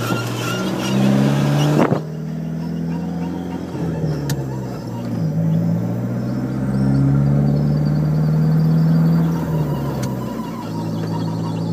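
Dodge SRT-4's turbocharged 2.4-litre four-cylinder engine running as the car drives, its pitch rising and falling, with sharp clicks about two and four seconds in and a faint, rapid, high ticking later on. The noise comes from the front left corner, which the owner suspects is a bad wheel bearing or hub.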